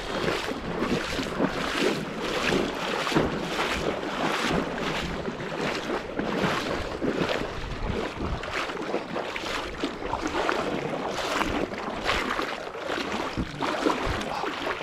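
A person wading through lake water, a sloshing swish with each stride in a steady rhythm of about two a second, with some wind on the microphone.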